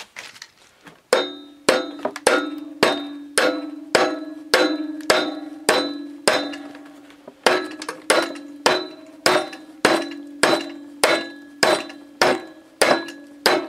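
A large wooden mallet hammers the pulley on a Tecumseh HS40 engine's rusty crankshaft, about twenty even blows at a little under two a second, beginning about a second in. Each blow sets the metal ringing. The pulley is stuck fast on the rusted shaft and barely moves.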